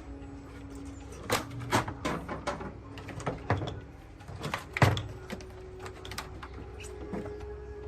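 An irregular series of sharp clicks and knocks, like hand tools and small metal parts being handled and set down, with the loudest knock about five seconds in.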